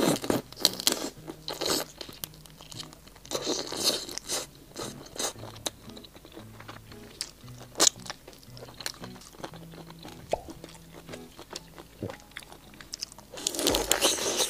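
Close-miked biting and chewing of spicy stir-fried shell-on shrimp: crunching with sharp, irregular clicks. Dense flurries come just after the start, around four seconds in and again near the end, with quieter chewing between.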